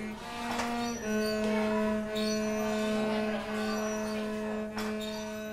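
Cello playing slow, long bowed notes. A brief higher note near the start, then one lower pitch held and re-bowed about every second.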